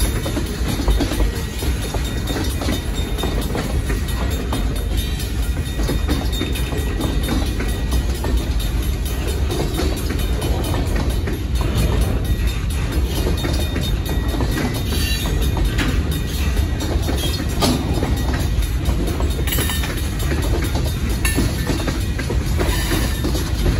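Freight train's tank cars and boxcars rolling through a grade crossing: a steady rumble of steel wheels on rail with clickety-clack over the rail joints, and a few sharper clanks in the second half.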